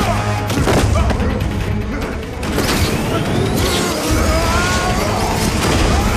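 Film fight soundtrack: music with a steady low drone under repeated heavy hits, thuds and crashes of a brawl.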